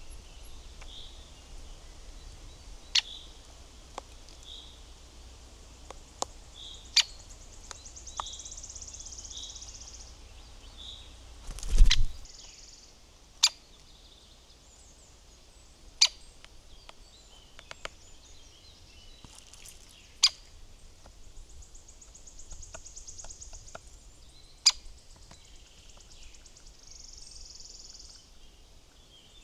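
Small wild birds calling at a feeder, with short chirps and a few buzzy high trills, among irregular sharp taps and clicks. A louder thump comes about twelve seconds in.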